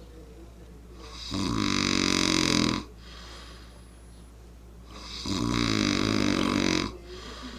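A person snoring: two long, loud snores about four seconds apart, each lasting about a second and a half, with quieter breathing between them.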